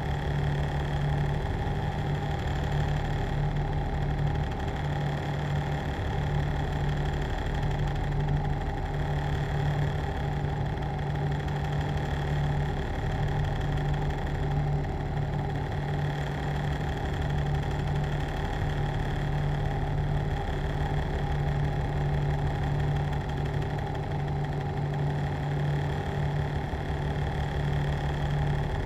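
Machine running steadily: a constant low hum with several steady higher tones above it.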